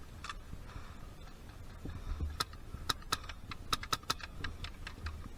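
Airsoft fire: a quick, irregular string of sharp clicks and snaps, BBs cracking out and striking around the player, starting a couple of seconds in and dying away about two seconds later.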